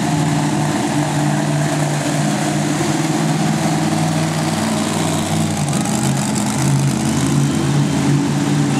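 Monster truck engine running at low revs as the truck rolls slowly over the arena dirt, a steady rumble whose pitch shifts a little about five to seven seconds in.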